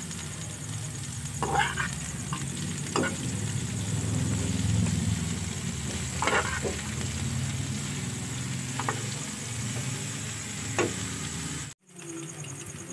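Mung bean sprouts and shrimp paste sizzling in a frying pan while a metal turner stirs them, scraping and knocking against the pan about five times. A steady low hum runs underneath, and the sound cuts off abruptly near the end.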